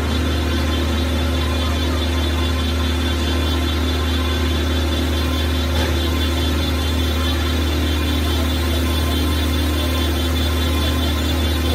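Crankshaft grinding machine running steadily: a constant low motor hum with steady tones above it, and the hiss of the grinding wheel on the crankshaft.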